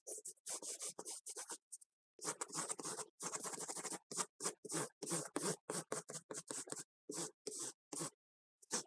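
Pencil drawn quickly across a large sheet of drawing paper on a wooden board, sketching hair lines: a run of short strokes about three a second, with two longer strokes a couple of seconds in.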